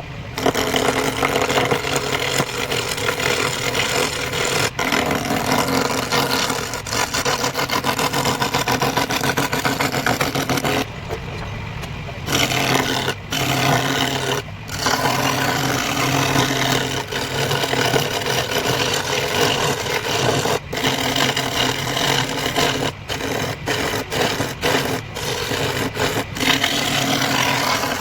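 Wood lathe running with a hand tool cutting into the spinning wood: a steady scraping hiss over the motor's low hum. About eleven seconds in the cutting stops for a moment while the hum carries on.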